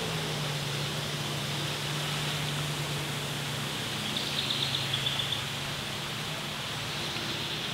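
Outdoor lakeside ambience: a steady hiss of background noise under a distant engine's low, steady hum, which dies away after about six seconds. About four seconds in, a bird gives a short burst of rapid chirps.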